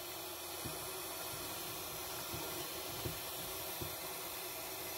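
Jeweler's gas soldering torch burning with a steady hiss, with a few faint ticks as the tweezers touch the silver ring.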